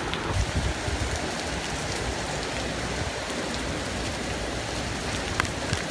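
Torrential rain of a hurricane's back eyewall pouring in a steady heavy hiss, with gusting wind rumbling on the microphone, strongest about half a second in. A few sharp ticks of drops or debris hitting nearby.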